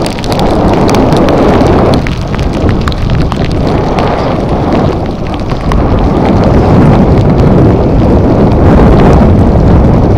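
Loud wind noise buffeting the microphone of a bike-mounted camera at riding speed, with scattered sharp ticks through it.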